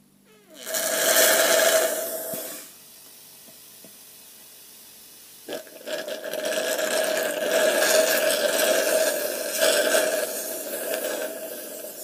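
Used refrigerator compressor running and sucking oil up from a cup through a tube, to refill itself with fresh compressor oil. The sucking is noisy, with a steady tone, and comes in two spells: one starts about half a second in and lasts about two seconds, and the other starts about five and a half seconds in and runs on, with a quieter stretch between.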